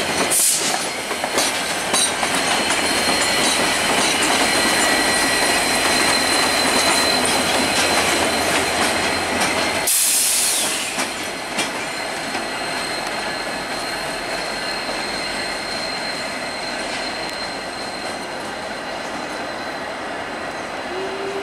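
Passenger train of LRC cars with an F40PH-2 diesel locomotive trailing, rolling over switches and curves: wheels clattering and flanges squealing in thin, steady high tones. The sound grows a little quieter about eleven seconds in.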